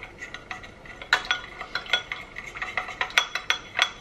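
Metal spoon stirring a runny sauce in a small glass bowl, clinking against the glass over and over at an irregular, quick pace.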